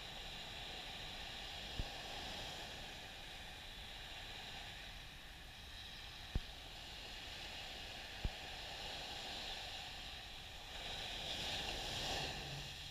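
Small, gentle waves washing up a sandy shore: a steady surf hiss that swells near the end as a wave breaks and runs up the sand. Three brief low thumps come through along the way.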